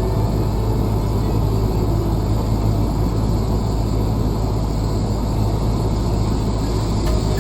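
Motorised dryer-vent cleaning equipment running steadily: an even, loud rushing noise over a low hum.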